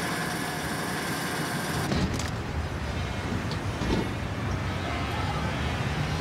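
Steady mechanical hum of a motorised lift platform carrying a man in a wheelchair; about two seconds in the sound shifts to a deeper rumble.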